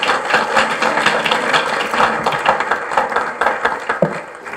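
Audience applauding: dense, steady clapping that thins out near the end.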